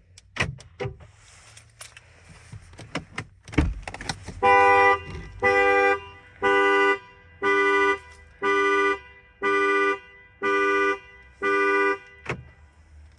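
A few sharp clicks and knocks, then the 2020 Chevrolet Equinox LT's horn pulsing as its anti-theft alarm goes off: eight loud blasts about once a second, each under a second long.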